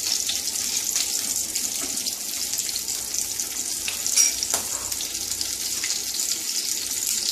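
Cumin seeds, bay leaves and green chilli sizzling steadily in hot oil in a non-stick kadai, the tempering (phoron) stage of cooking.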